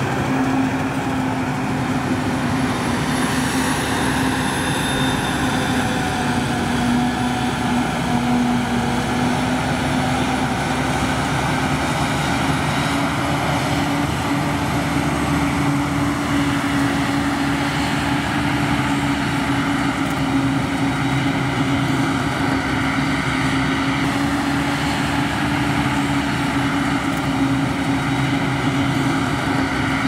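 Claas forage harvester and tractor engines running steadily under load while the harvester chops maize. It is a continuous machine drone with a strong, even hum that dips slightly in pitch and recovers.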